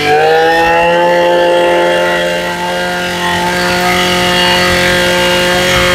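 Small 23cc two-stroke brush cutter engine with a 32 mm bore, revved sharply up to full throttle at the start and then held at high revs with a steady, even note.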